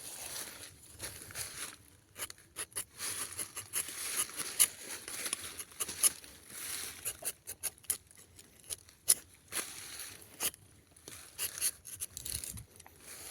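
Tapping knife shaving a thin strip of bark from a rubber tree: a run of short, irregular scraping strokes with small sharp clicks.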